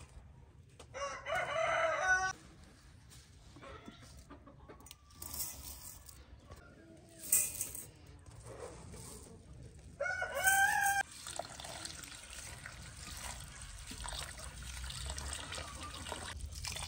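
Rooster crowing twice, about a second in and again about ten seconds in. From about eleven seconds in, water runs steadily from a brass tap into a stainless steel bowl. Two short sharp sounds come in between.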